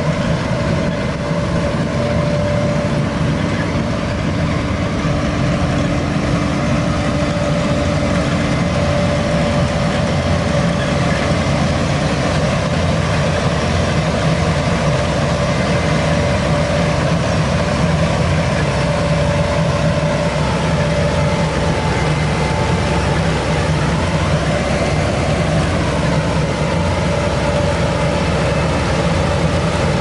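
AVR Puma 4.0 self-propelled potato harvester running steadily as it lifts potatoes, with its engine under load and a steady whining tone from the machine over the engine noise.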